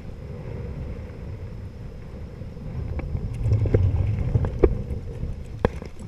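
Choppy water sloshing with wind rumbling on the microphone. From about three seconds in, a hooked snook thrashes at the surface close by, giving a run of sharp splashes and knocks.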